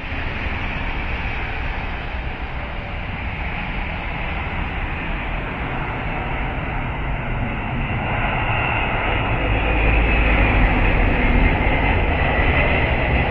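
Antonov An-124 Ruslan's four D-18T turbofan engines on landing approach overhead: a steady deep jet rumble that grows louder, with a high whine coming in after about eight seconds.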